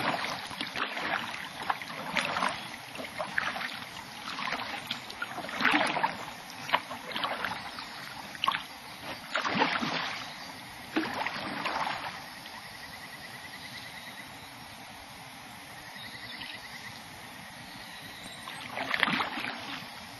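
Kayak paddle blades dipping and splashing in lake water in irregular strokes for about twelve seconds, then stopping while the boat glides quietly, with one more paddle splash near the end. A faint, high buzzing trill sounds twice during the glide.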